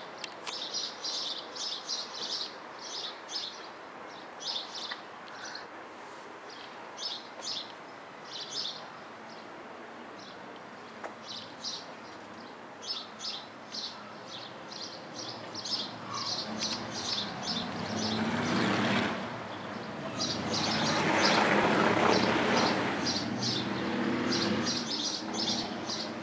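Small birds chirping in short, repeated calls. From about two-thirds of the way in, a diesel train engine's rumble swells up and becomes the loudest sound, easing a little near the end.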